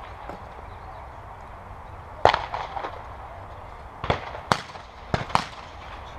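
Shotgun shots on a trap field: one loud shot about two seconds in, then two quick pairs of shots around four and five seconds in, each trailing off in a short echo.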